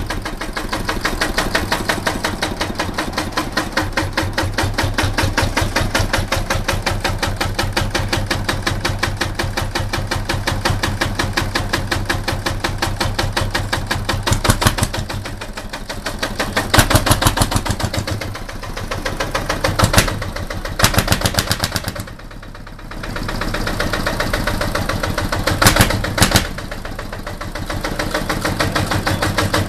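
Small diesel engine of a custom-built diesel motorcycle running with a steady, rapid clatter. Its revs are blipped up in short bursts several times in the second half, with a brief drop about 22 seconds in.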